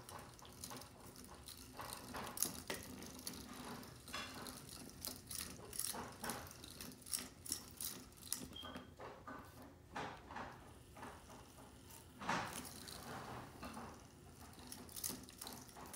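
Battery-powered spinning-bird cat toy running: a faint steady motor hum with irregular light clicks and rattles.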